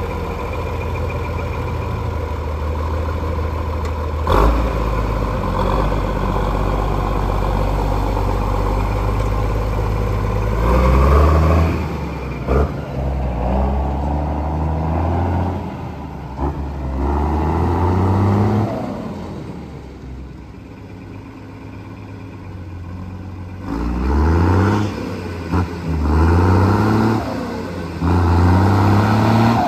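A vehicle engine running steadily, with a single knock, then accelerating: its pitch climbs and drops back several times as it shifts up through the gears. After a quieter pause it pulls away again with more rising shifts.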